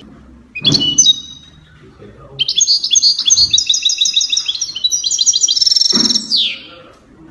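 Recorded songbird twittering: a quick run of rapid, high chirping notes for about four seconds, ending in a falling note. A short high chirp with a low whoosh comes about half a second in.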